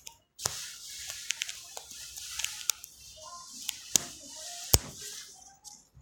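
Wet sand and water crackling and hissing, with many sharp clicks, as the sodden edges of a water-filled hole in beach sand break away. It starts about half a second in and dies away near the end.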